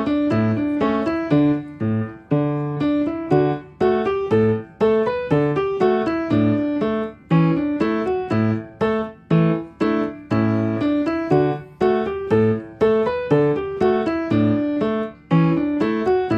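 Background piano music: a gentle melody of struck notes over a repeating bass line.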